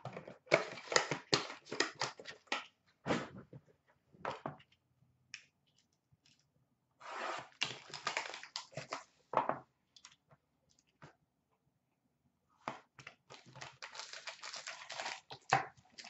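Plastic wrap and a card-pack wrapper being torn and crinkled while a sealed hockey card box is opened, in three spells of crackling separated by quiet pauses.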